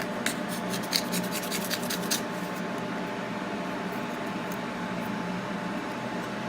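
Light clicks and scratches of tools working the loosened back glass off an iPhone, bunched in the first two seconds, over a steady machine hum.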